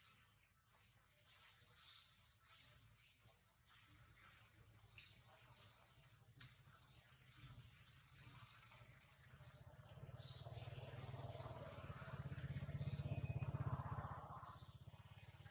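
Faint chirping of small birds, many short high calls spread throughout. A low rumble swells in the second half and fades near the end.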